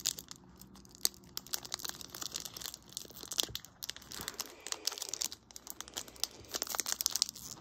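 Foil Pokémon card booster pack wrapper crinkling and tearing as it is worked open by hand, an irregular run of sharp crackles.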